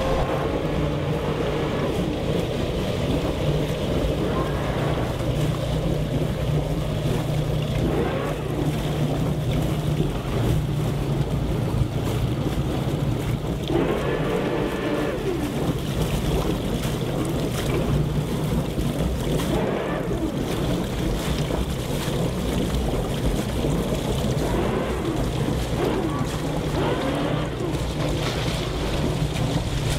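A large motor yacht's twin inboard engines running with a steady low rumble while the boat is manoeuvred at the dock, with water noise and some wind on the microphone.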